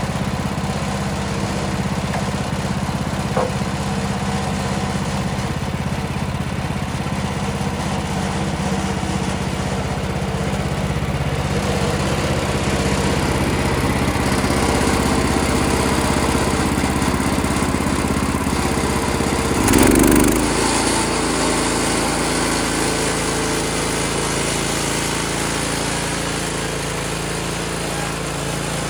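Gas engine of a Woodland Mills HM126 portable bandsaw sawmill running steadily. There is a brief loud burst about two-thirds of the way through, after which the engine note shifts.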